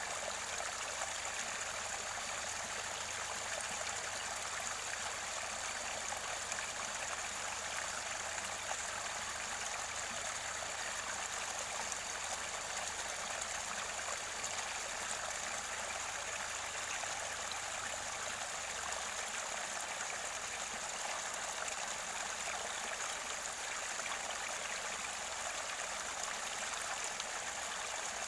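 Mountain stream water flowing and gurgling near its spring source, a steady rushing with no breaks.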